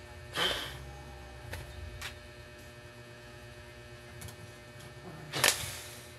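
Steady electrical mains hum, broken by two short, loud rustling noises about five seconds apart and a few faint clicks.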